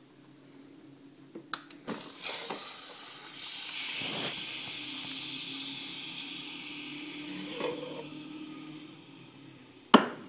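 Bosch Tassimo pod coffee machine dispensing hot chocolate into a mug: a steady hiss of steam over a low pump hum. It starts after a couple of clicks about two seconds in and fades away by about eight seconds. A sharp knock near the end comes as the ceramic mug is lifted off the stand.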